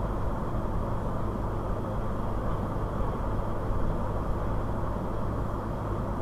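Steady, low rumbling background noise with a low hum and no distinct events.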